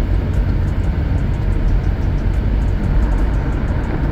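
Heavy rain falling, a steady rushing noise with a low rumble underneath and faint ticks of drops.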